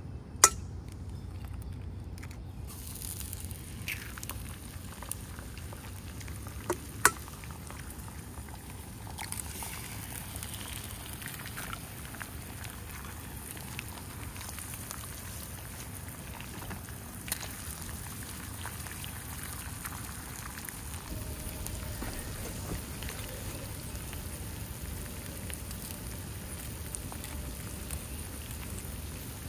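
Food frying in a pan, a steady crackling sizzle that starts a couple of seconds in and grows louder around nine seconds in. There is a low rumble underneath and a few sharp clicks, the loudest near the start and about seven seconds in.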